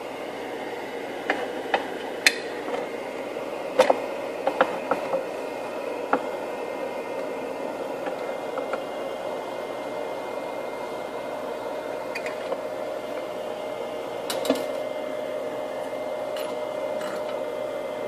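Scattered small clicks and knocks of a screwdriver working a screw on the plastic casing of a Stat Fax chemistry analyzer, several in the first six seconds and a couple more about fourteen seconds in, over a steady machine hum.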